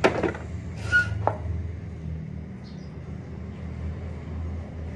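A few brief clatters and a click of kitchen utensils against a dish in the first second or so, then a steady low rumble in the background.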